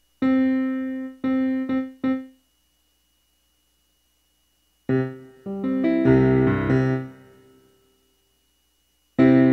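Background piano music: four struck chords, a pause, a short run of notes that dies away, another pause, then the playing starts again near the end.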